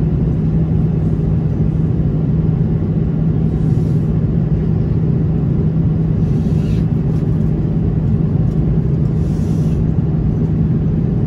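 Steady cabin drone of an Airbus A330-300 in flight, heard from a window seat over the wing: the Rolls-Royce Trent 700 turbofans' hum, with a constant low tone, under the rush of air past the fuselage.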